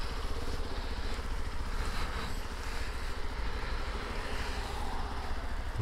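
Hero XPulse 200's single-cylinder engine running steadily as the motorcycle pulls away and rides slowly along the road, with wind rush on the microphone.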